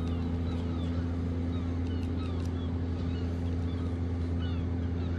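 Steady low drone of ship engines, with many short, falling gull calls over it.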